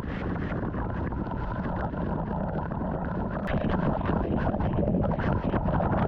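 Waterfall rushing close to the microphone: a steady noise of falling and splashing water that gets louder a little past halfway through.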